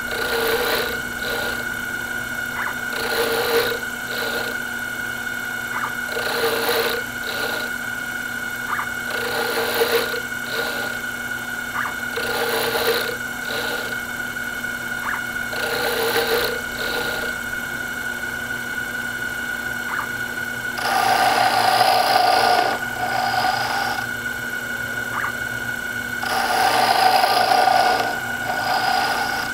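Small lathe running with a steady whine while a hand-swung radius cutter takes repeated cuts into a spinning wooden sphere, a scraping cut about every three seconds. Two longer, louder cuts come near the end.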